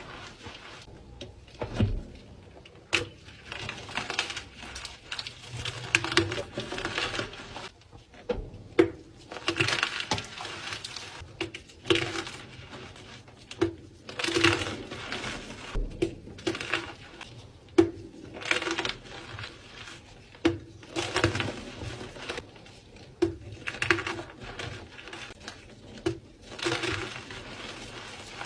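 Blocks of dyed gym chalk being crushed, crunching and crumbling in repeated bursts every second or two, each starting with a sharp crack.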